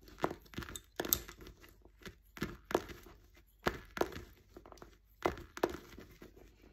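Lace bobbins knocking together in irregular sharp clicks, often two close together, as pairs are handled, twisted and crossed on the lace pillow.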